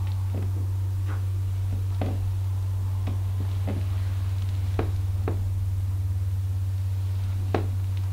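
A steady low hum with scattered faint knocks and creaks at irregular intervals, the sharpest about seven and a half seconds in. The knocks come from a person slowly swaying side to side, shifting her weight on the floor.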